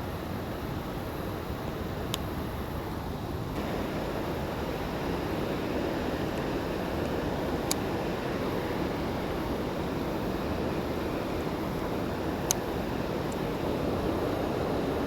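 Steady rushing of stream water, a little louder from about three and a half seconds in, with a few faint sharp ticks over it.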